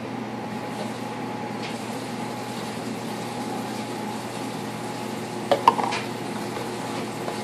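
Steady hum of a washing machine running. About five and a half seconds in, a short clatter of plastic baby bottles is set down on a countertop.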